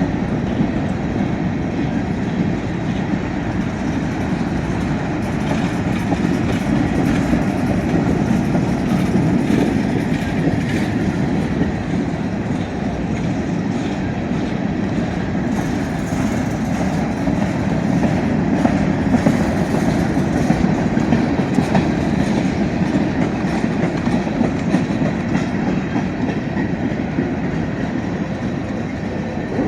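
Freight cars of a Union Pacific train rolling steadily past, a continuous low rumble with wheels clicking over the rail joints.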